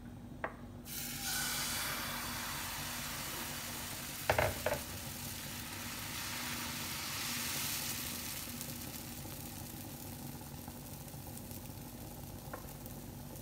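Pancake batter sizzling as it is poured into a hot, unoiled non-stick frying pan over a gas burner, the hiss starting about a second in. A few sharp knocks of the ladle against the pan about four seconds in.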